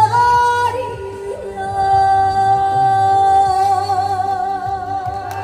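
Trot song performed live: a woman singing a long held note over an accompaniment backing track, the note wavering into vibrato near the end.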